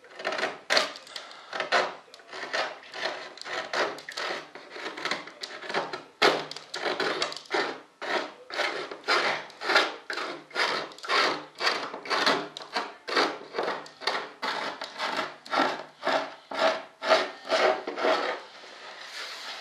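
Hand sanding along the edge of a freshly molded wing: quick, even back-and-forth rubbing strokes, about two or three a second, cleaning up the edge.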